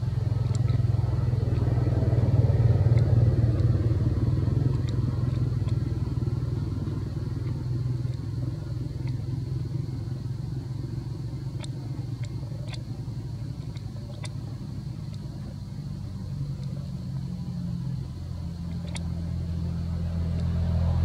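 An engine running steadily off-picture, swelling about two to four seconds in and easing off, with a few faint sharp clicks.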